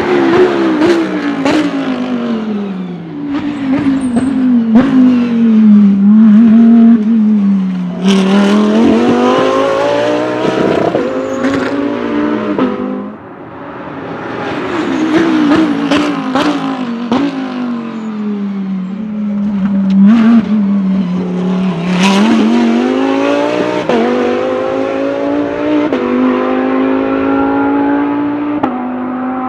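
GT3 race car's V10 engine at racing speed: its pitch falls as it slows and changes down, then climbs through the gears with quick upshifts, twice over. Sharp cracks are scattered through.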